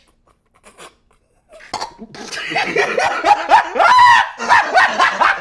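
Loud laughter from one person, starting about two seconds in and running on as a quick, uneven string of laughs.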